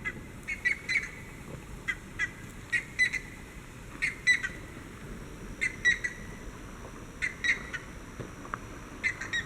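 Animal calls: short, high chirps in quick groups of two or three, repeated every second or so, over a steady low hiss.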